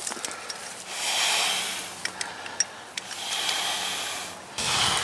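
A man breathing hard while working: three long, airy breaths about a second apart, with a few light clicks in between.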